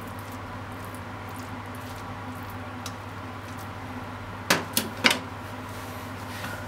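Kitchenware set down on a gas stove's stainless top: three quick clatters about four and a half seconds in, over a steady hum.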